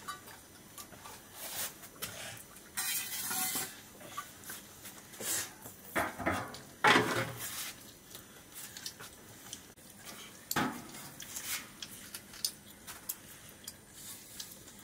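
Scattered light clinks and scrapes of fingers scooping rice from metal plates and a steel bowl, in short irregular bursts.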